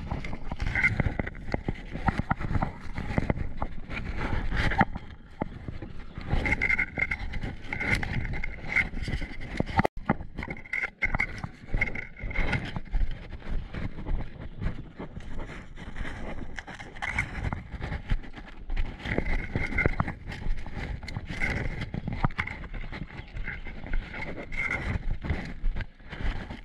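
Rustling and brushing of leaves and stems against the body-worn action camera and gear, with irregular footsteps and knocks as the player pushes through undergrowth and walks along a path. Short high chirps recur many times.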